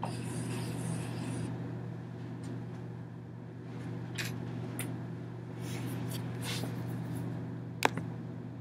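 Steady low hum of the room, with rustling in the first second or so, a few faint scrapes, and one sharp click near the end.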